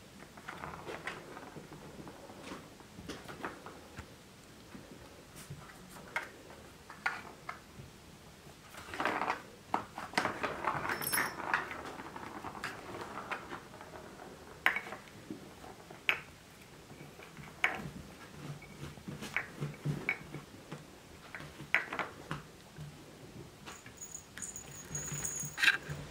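Maine Coon kittens at play with toys, batting at a plastic ball-track toy: irregular light knocks, taps and scuffles of paws and toys, with a busier stretch of rattling and scuffling about nine to twelve seconds in.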